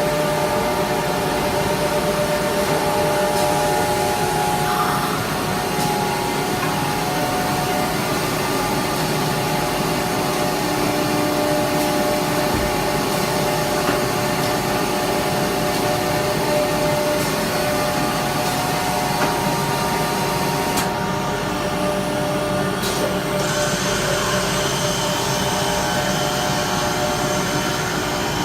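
Automatic-feeding CNC router running: a steady machine whir of motors and rushing air, with several held tones. The high hiss drops away about three quarters of the way through.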